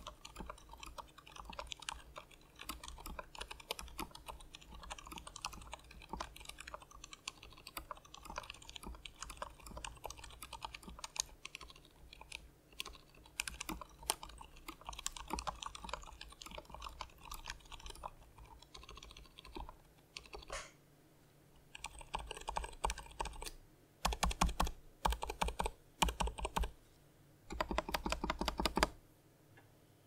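Varmilo VA87M mechanical keyboard with Cherry MX Silent Black linear switches (dampened, about three years old) being typed on. A steady run of keystrokes lasts about twenty seconds, then after a short pause comes several short bursts of fast, rapid-fire keystrokes.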